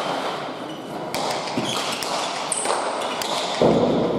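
Pelota ball being struck and rebounding off the walls and floor of an indoor court during a rally: a series of sharp knocks, about one a second, echoing in the hall.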